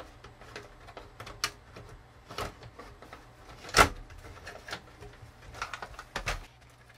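Plastic clicks and knocks as a cassette-recorder boombox's housing is handled and turned over on a workbench, with one sharper knock about four seconds in.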